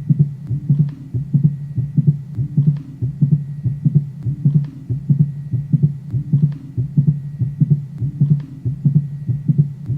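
Recorded heart sounds: a regular, repeating heartbeat of low thuds over a continuous low hum.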